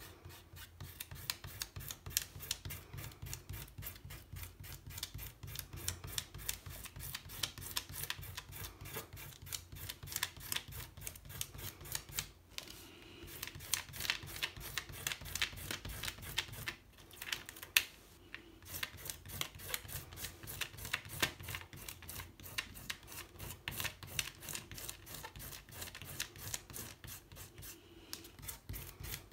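Fingertips rubbing quickly over pastel on a watercolour paper painting: a fast, even run of short scratchy strokes, pausing briefly twice around the middle.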